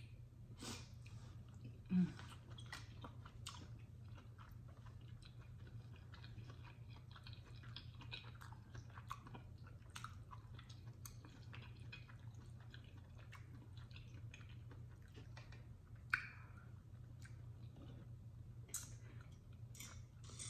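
Faint, close-up mouth sounds of chewing soft chitterlings (pork intestines): a steady run of small wet clicks and smacks, with one brief louder low sound about two seconds in.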